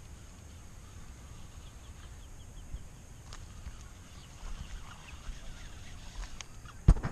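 Outdoor marsh ambience: a steady low rumble with a quick run of faint bird chirps about two seconds in and a few light ticks, ending in a loud knock near the end.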